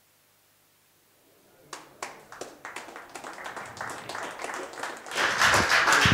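Audience clapping: a few scattered claps start about two seconds in and swell into full applause around five seconds in.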